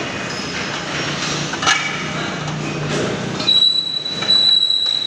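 Factory din from aluminium scaffolding frame assembly: a steady mechanical rumble with metal clinks and a knock, then a steady high whine from about three and a half seconds on.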